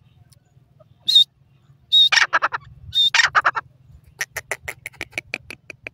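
Grey francolin calling: a short high whistled note, then two phrases that each open with a high whistle and break into a quick rattle of harsh notes, followed by a run of evenly spaced sharp clicking notes, about six a second, growing fainter toward the end.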